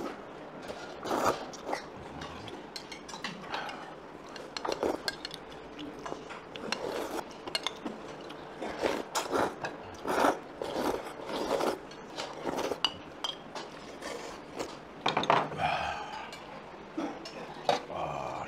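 Eating utensils clinking, knocking and scraping against bowls and a pot of noodle soup during a meal, in irregular short clicks throughout.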